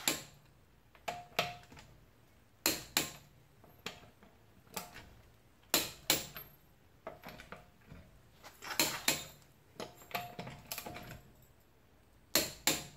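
Sharp metallic clicks and clinks from a torque wrench and socket on a car's wheel lug nuts, often in pairs, a second or two apart, as each nut is torqued to spec, some with a brief metallic ring.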